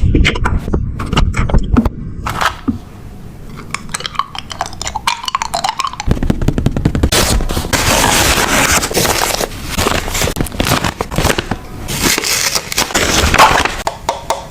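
Close-up crinkling and rustling of paper and plastic journaling materials being handled, with rapid runs of sharp clicks and crackles; the crinkling swells loudest twice, about halfway through and again near the end.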